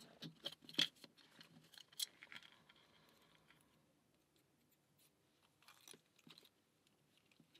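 Faint small clicks and light scraping of a key going into a pin-tumbler lock and the core being shimmed and worked loose. The clicks are busiest in the first three seconds, then a few faint clicks come about six seconds in.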